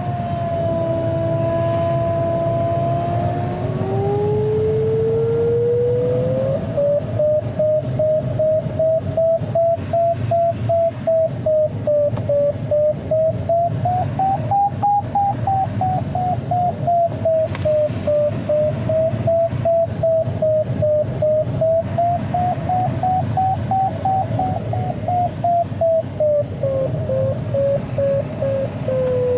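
Glider's audio variometer: a tone glides up in pitch over the first few seconds, then turns into steady beeping, a few beeps a second, its pitch wavering up and down. The beeping is the sign of the glider climbing in lift while circling. A steady rush of airflow over the cockpit runs underneath.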